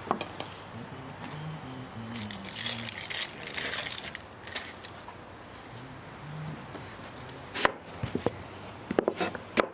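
Dry onion skin crackling as it is peeled off by hand, then a chef's knife cutting through the onion onto a plastic cutting board: one cut about three quarters of the way in, then quick chopping strokes starting near the end.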